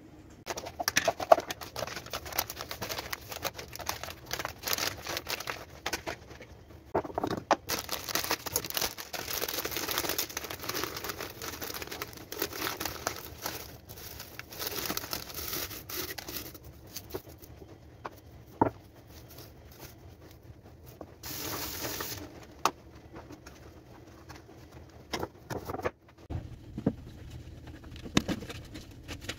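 Plastic bags and food packaging rustling and crinkling as they are handled, with dry leaves crackling as they are crumbled into a glass jar and sharp knocks now and then.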